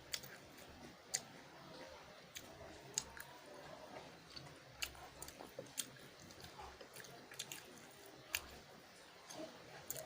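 Close-miked chewing of spicy instant noodles, with scattered sharp wet mouth clicks and smacks.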